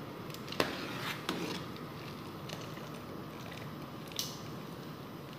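A large aluminium pot of rice boiling on a gas hob with a steady hiss, with three sharp metal clinks as a long-handled mesh strainer scoops the parboiled rice and drains it back into the pot, one about half a second in, one just after a second and one near the end.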